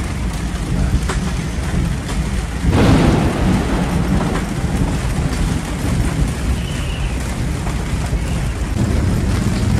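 Storm rain and wind beating on a boat's clear vinyl and canvas flybridge enclosure, over a steady low rumble. A louder rushing surge comes about three seconds in.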